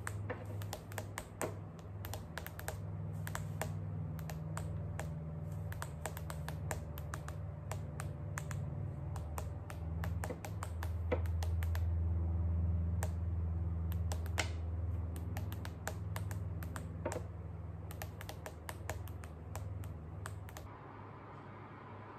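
Long fingernails tapping and clicking on a tablet's touchscreen, many quick irregular taps, over a steady low hum; both stop near the end.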